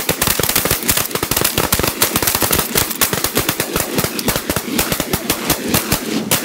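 Several shotguns firing together in a rapid, unbroken barrage: many overlapping shots a second from a group of hunters emptying their guns into a flock of snow geese.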